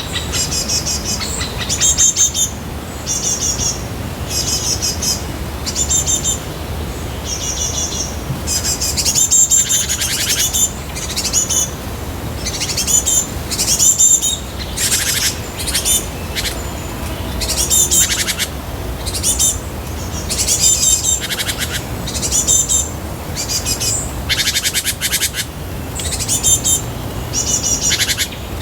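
A bird calling over and over with short, high, rapidly trilled calls, some of them sweeping downward.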